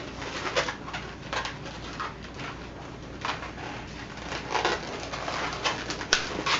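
Latex modelling balloons rubbing and squeaking against each other in irregular bursts as they are twisted into small locks of two. A sharp click comes near the end.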